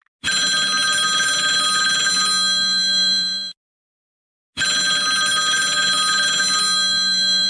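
A bell ringing in two identical rings of about three seconds each, with a pause of about a second between them.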